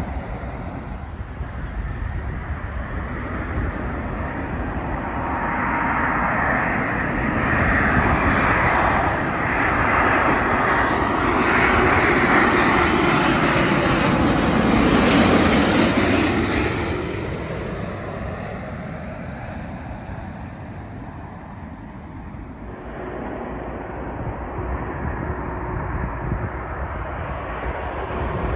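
Boeing 777 airliner on final approach passing low overhead: the jet engine roar swells, is loudest in the middle, then fades away. Near the end the roar of another approaching airliner starts to build.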